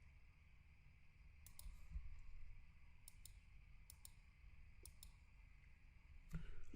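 Faint computer mouse clicks, four quick pairs spread over a few seconds, against quiet room tone.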